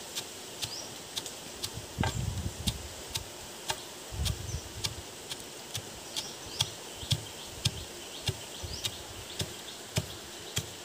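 Wooden pestle pounding roasted peanuts in a stone mortar, in an even rhythm of about two strikes a second.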